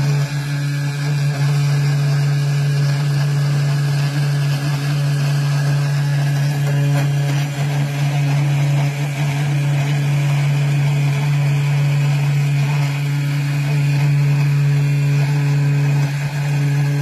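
CNC router spindle running steadily while a 2 mm ball-nose bit carves wood: a constant motor hum with the hiss of cutting.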